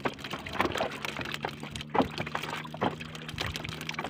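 Water splashing and sloshing around a small fishing boat, with irregular knocks and a low steady hum underneath.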